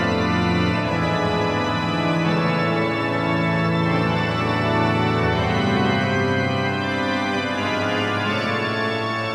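Chorale prelude played on a sampled pipe organ, a sample set of the 1731 Hinsz organ: sustained full chords over a moving bass line, without a break.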